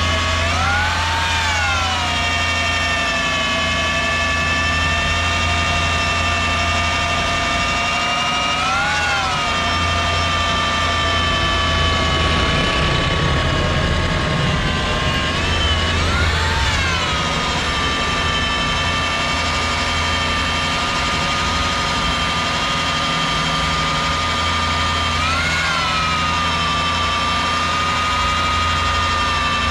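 Electric motor of a BLUEROCK 4Z1 W/S diamond core drill running under load while cutting concrete: a steady high-pitched whine whose pitch briefly rises and falls back four times.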